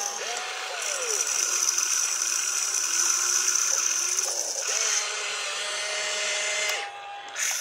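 Electric motors and gearing of a toy RC excavator whining as it swings and works its boom and arm. The pitch rises and falls with each control movement over a steady high whine, which drops out briefly near the end.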